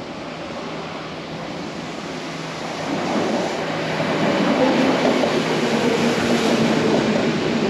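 Kintetsu Minami-Osaka Line electric train pulling into the station platform. Its rumble grows louder over the first four seconds or so, then holds steady.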